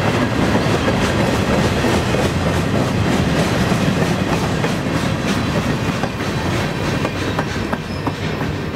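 Freight train's boxcars rolling past, wheels clicking and clattering over the rails; the sound eases off near the end as the last car passes and moves away.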